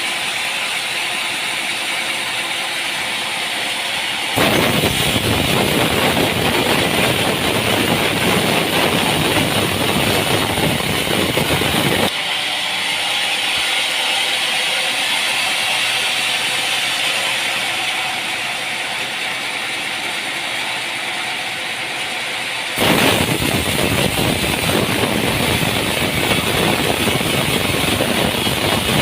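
Sawmill machinery running, a loud, steady mechanical noise. It changes abruptly three times, growing louder and fuller about four seconds in, easing about twelve seconds in, and growing louder again about twenty-three seconds in.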